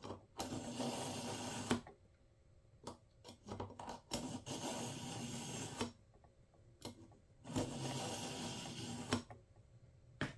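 Kitchen knife blade drawn through the slot of a handheld knife sharpener, grating in three long pulls from heel to tip, with a few light clicks as the blade is reset between pulls.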